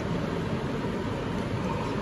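Steady background noise of a railway station hall: an even, constant din with no single sound standing out.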